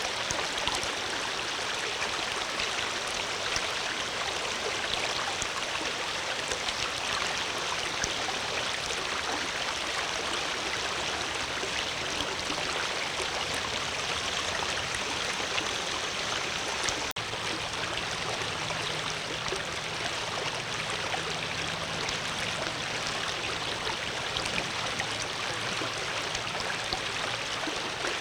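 Flowing water rushing steadily, like a stream. About two-thirds of the way through there is a momentary break with a click, like an edit splice, after which a faint low hum sits under the water.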